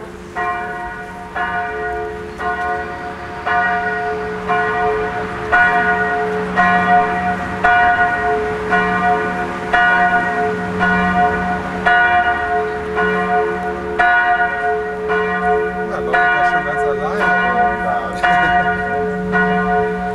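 Church bells ringing in the tower: clapper strikes come evenly, about three every two seconds, over a steady ringing hum, growing louder over the first few seconds.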